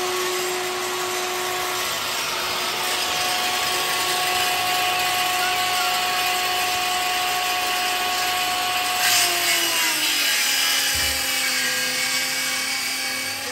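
Electric power saw cutting through a plywood sheet, a steady whine over a hiss of sawing, the whine dropping in pitch about ten seconds in as the motor slows under the load of the cut.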